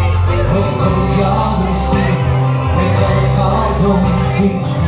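Live band playing an instrumental passage of a folk ballad: acoustic and electric guitars over a steady bass line, heard through a room's PA.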